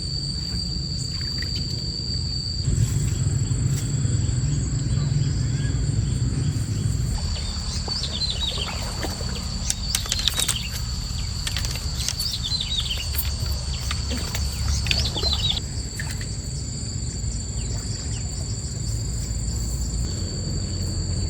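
Outdoor ambience: a steady high insect drone over a low steady rumble, with a bird chirping repeatedly from about eight to fifteen seconds in.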